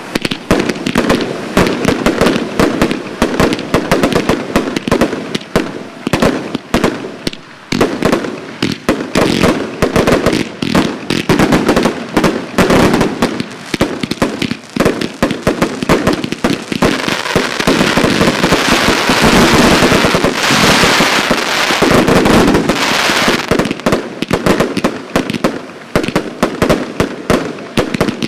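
Collision Thunder 250-shot firework cake firing a rapid, unbroken volley of shots and bangs. The shots come thickest and loudest about two thirds of the way through.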